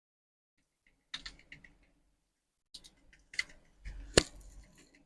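Small plastic toy pieces being handled, giving two short runs of light clicks and taps, with one sharp click just after four seconds in.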